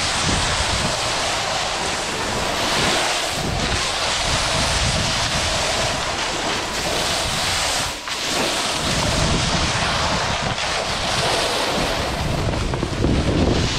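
Snowboard sliding and carving down a groomed snow slope, its edge scraping the snow, mixed with wind rushing over the microphone from the riding speed. The noise dips briefly about eight seconds in.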